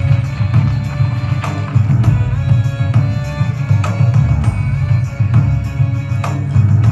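Loud music from a light-and-sound show's soundtrack: heavy bass, sustained tones and a percussion stroke about every second and a half, heard through a phone's recording.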